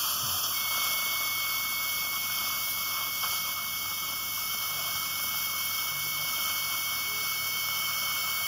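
Steady hiss of a surgical suction aspirator drawing air and fluid at the operating site, with a faint high whistle coming in about half a second in.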